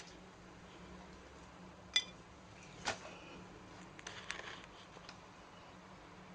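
Faint steady low hum with scattered small clicks: a light metallic clink about two seconds in, a sharper click about a second later, and a quick cluster of small clicks around four seconds in.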